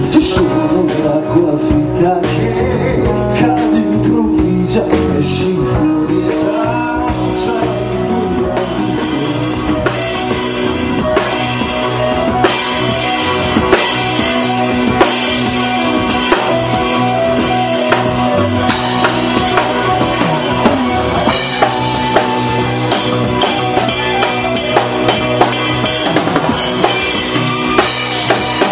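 Live band playing: an instrumental passage with a drum kit keeping the beat under guitar and melodic lines. The drum hits grow more regular from about halfway in.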